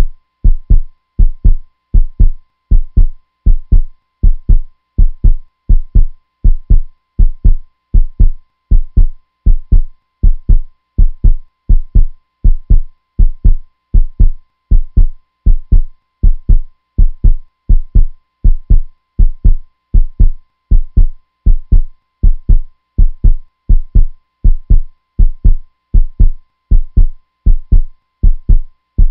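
Heartbeat sound effect: steady, evenly spaced low thumps in an unbroken rhythm, with a faint steady tone beneath.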